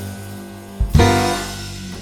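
Instrumental music: a held chord, then a loud low hit just before the middle, after which the chord rings on and starts to fade.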